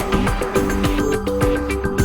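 Background music: an upbeat tune with a steady beat and short pitched melody notes.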